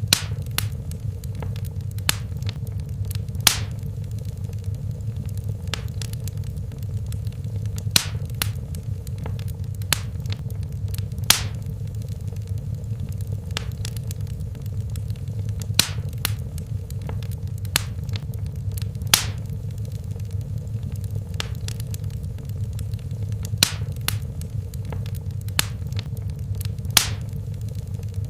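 Fire burning in a fireplace: a steady low rumble of flames with sharp crackles and pops every second or two.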